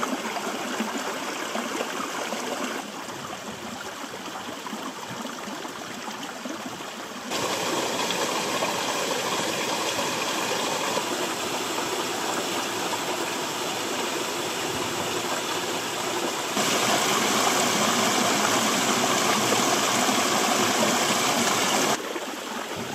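A low-running mountain burn, water rushing and splashing over rocks as a steady noise. The noise jumps louder or quieter abruptly several times.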